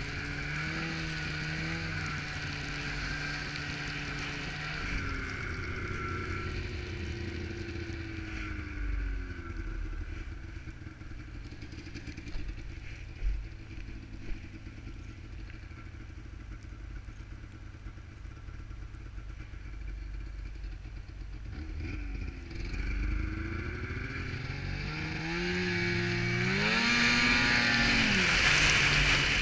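Snowmobile engine under way. Its pitch falls as it slows in the first third, runs lower and quieter through the middle, then rises as the throttle opens and is loudest near the end. A steady rushing noise runs underneath, with one sharp tick about halfway through.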